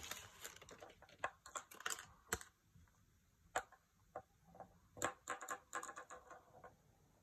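Light plastic clicks and rattles from a small red plastic toy spinning top being handled and twisted by hand, then spun on a hard countertop. The clicks come in two clusters, one at the start and a denser clatter from about five seconds in.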